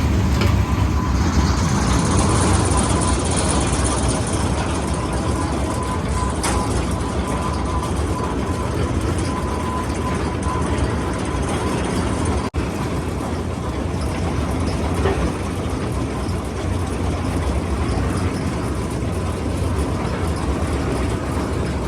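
Borewell drilling rig's engine running steadily and loudly, with a momentary break about twelve seconds in.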